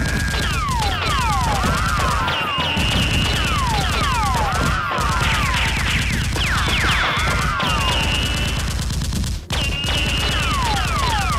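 Sustained rapid automatic gunfire sound effects, an unbroken stream of shots. Repeated falling whistle-like tones sound over the shots.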